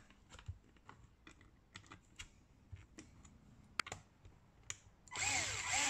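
Light scattered clicks and taps of a hand tool and plastic parts being handled, then about five seconds in a cordless drill-driver runs briefly, its motor whine rising and falling in pitch as it drives in the bolt that holds the plastic wheel-well fender.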